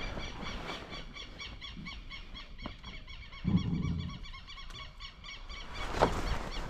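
A wild animal calling: a long run of short, evenly repeated high notes, about five a second. A dull thump comes about three and a half seconds in, and a sharp knock with rustling near the end.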